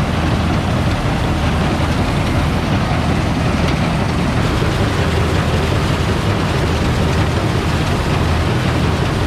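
Paddy harvesting machine running steadily: a constant engine drone with a low hum and no change in pace.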